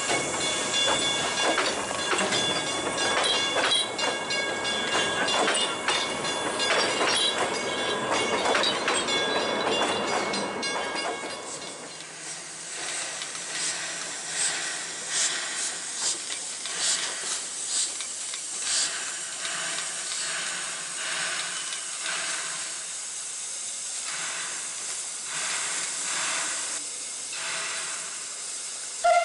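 Narrow-gauge train of open-sided carriages rolling past, wheels clattering with a thin steady squeal. About twelve seconds in it gives way to the Garratt steam locomotive G42 shunting: slow, evenly spaced exhaust chuffs over a steady hiss of steam.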